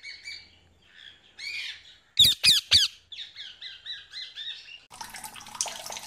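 Parrots squawking and chirping: scattered short chirps, three loud sharp squawks about two seconds in, then a quick run of chattering chirps. A rush of water comes in near the end.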